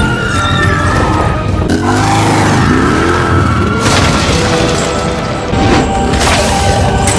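Action-film soundtrack: music over a motorcycle engine revving up and down, with booming impacts about four seconds in and again about six seconds in.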